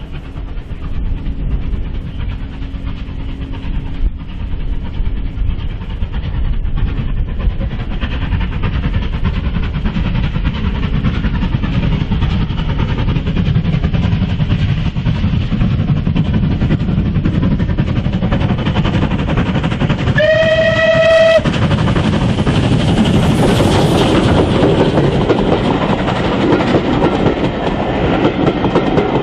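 Unrebuilt Bulleid light pacific steam locomotive approaching under steam, its running sound growing steadily louder. It sounds its whistle once, for about a second, two-thirds of the way through. Then it passes close and its coaches rumble by with a clickety-clack on the rails.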